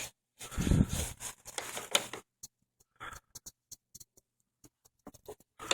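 Handling noises: a rustling scrape for about a second and a half, then scattered light clicks and taps.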